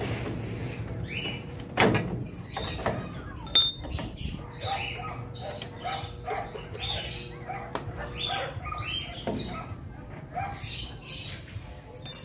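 Metal tools and parts clinking as a motorcycle's front wheel is taken off the fork. There is a knock about two seconds in, a sharp ringing clink a little later, and another ringing clink near the end. Small birds chirp in quick repeated calls in between.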